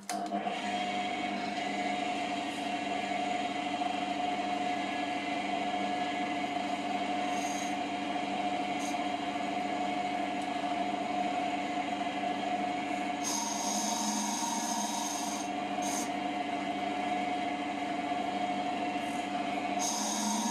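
JIB W0903X wood lathe running with a steady motor hum while a cutter in a ball-turning jig scrapes into the spinning wood, hollowing out the inside of a cup shape. A louder hissing cut comes in about two-thirds through and again near the end.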